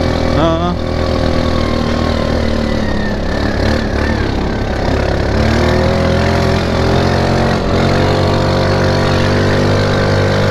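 Linhai 400S Dragonfly ATV engine running steadily under way; about five seconds in its pitch climbs as the engine speeds up, then holds at the higher speed.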